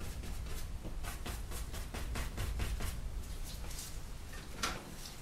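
Oil paintbrush scratching and dabbing against the canvas and paint palette: soft, quick scrapes and taps, several a second, with a sharper knock near the end, over a low steady hum.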